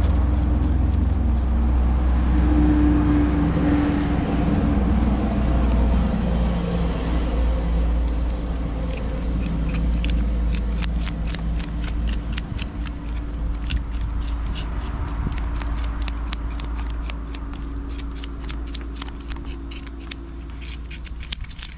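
Fish being scaled: quick, repeated scraping strokes, several a second, start about eight seconds in and keep going. Under them an engine runs with a steady low rumble that slowly fades.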